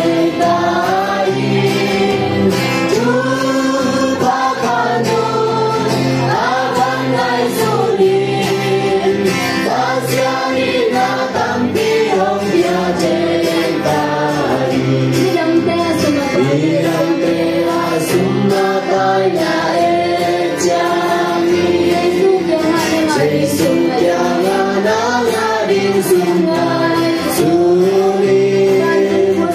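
Several voices singing a Christian gospel song together over instrumental backing with a steady beat.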